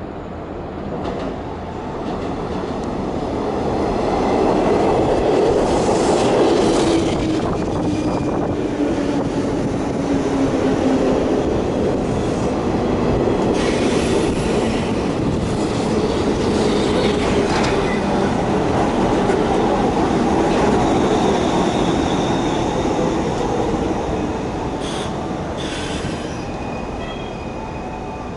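Electric commuter train on the JR West Osaka Loop Line running through the station, growing louder after a couple of seconds and then fading near the end. A motor whine falls in pitch over several seconds, wheels squeal in thin high tones, and the wheels make a few sharp clicks over the rail joints.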